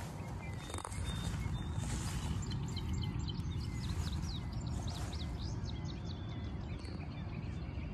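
Outdoor pasture ambience: small birds chirping over and over, with a steady low rumble underneath.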